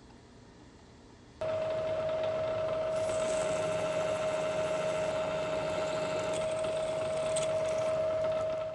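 Vertical milling machine running while drilling a clearance hole in steel: a steady whine over a rushing noise that starts suddenly about a second and a half in and stops near the end.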